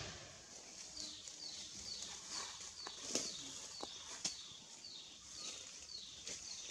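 A bird repeating a short, high, falling note about twice a second over a steady high-pitched hiss of outdoor background noise, with a few sharp clicks in the middle.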